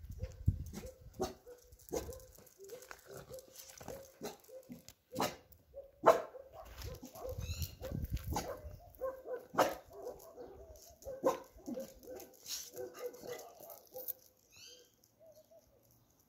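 A beagle barking over and over in short, sharp barks, spaced irregularly, the barking thinning out and stopping about two seconds before the end.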